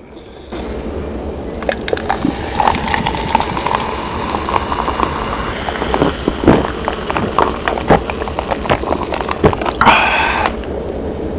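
Carbonated cider poured from a can over ice into a glass mug, fizzing, the pouring tone rising as the glass fills. Then ice clinking and gulps as the soda is drunk.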